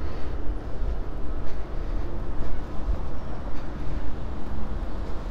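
City street noise: a steady rumble of road traffic.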